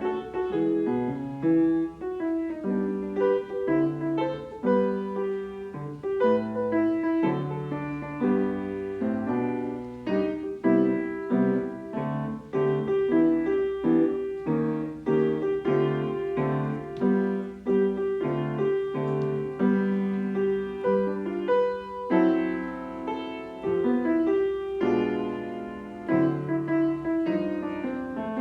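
Solo piano playing a flowing melody over chords, notes struck and left to ring.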